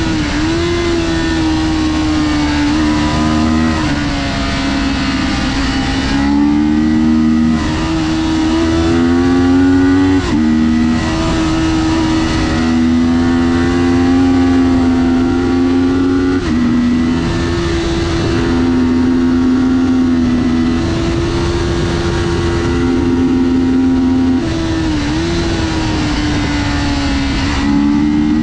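Kawasaki Ninja 400's parallel-twin engine running hard on track. Its pitch climbs, then drops sharply several times, as with gear changes and easing off for corners, over a steady rushing hiss.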